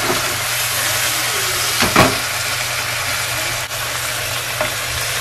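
Beef and onions sizzling steadily in a frying pan in their soy-and-vinegar sauce as a wooden spatula stirs them, with one sharp knock about two seconds in, over a low steady hum.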